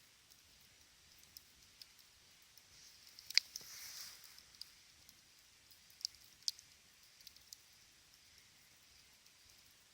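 Small campfire crackling: scattered sharp pops over a faint hiss, with a louder burst of pops and hissing about three to four seconds in and two more distinct pops around six seconds in.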